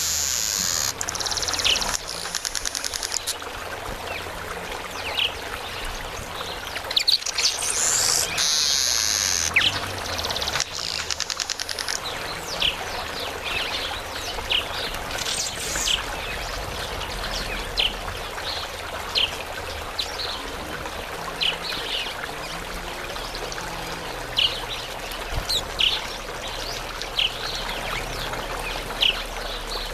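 Male southern masked weavers chattering: long, rasping, buzzy bursts at the start and again around eight seconds in, then short high chirps scattered through the rest.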